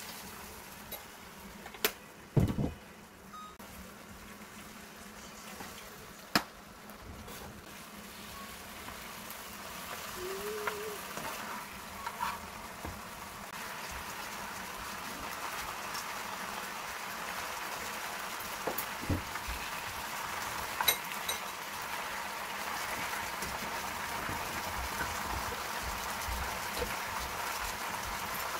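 Bacon frying in a pan with soy sauce and agave syrup poured over it, sizzling and bubbling as the glaze reduces. The sizzle grows louder through the second half, with a few sharp clicks of the metal spatula against the pan.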